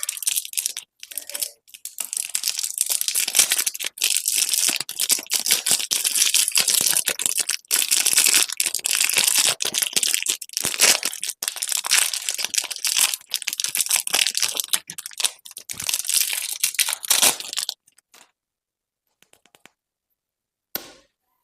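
Candy wrappers crinkling and tearing open in rapid, close-up handling. The crackling stops about 18 seconds in, with one brief rustle near the end.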